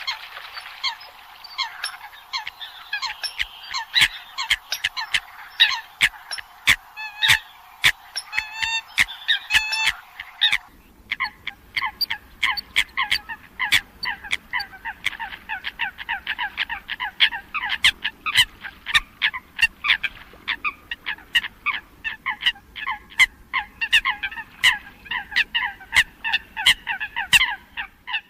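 Eurasian coots calling: a rapid, overlapping run of short, sharp, honking calls and clicks, several a second, like a flock. About ten seconds in the recording switches abruptly to another stretch of denser calling over a low background rumble.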